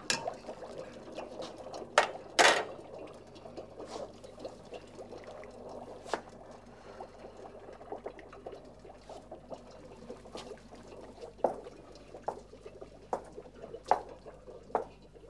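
Kitchen sounds: a pot of water bubbling, with scattered clinks and knocks of utensils and crockery. The loudest knocks come about two seconds in.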